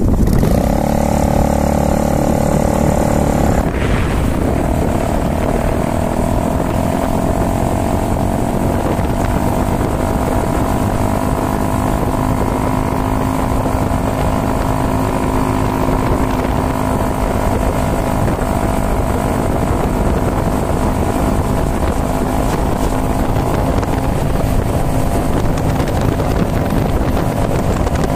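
Cruiser motorcycle engine running under way, with wind rushing over the microphone. About four seconds in the engine note breaks off, then climbs slowly for several seconds as the bike speeds up, and after that holds steady at cruising speed.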